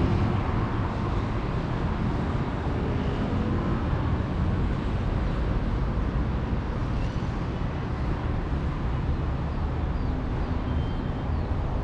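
Steady hum of city traffic heard from high above the streets: an even, low rumbling noise with no distinct events.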